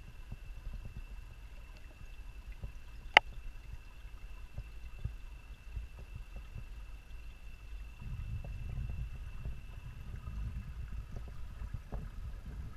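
Muffled underwater ambience picked up by a GoPro Hero 3 Black in its waterproof housing, submerged in a garden pond: a low rumble with a faint steady high tone. A single sharp click comes about three seconds in, and the rumble grows louder from about eight seconds in as the camera shifts in the water.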